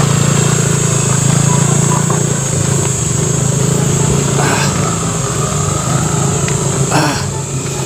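Small motor scooter engine running steadily at low speed on a rough gravel road.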